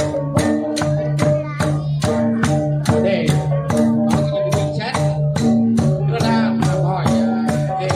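Central Highlands gong ensemble (cồng chiêng): several hand-held gongs of different pitches struck in turn in a quick, even rhythm of about four strokes a second, their ringing tones overlapping into an interlocking pattern.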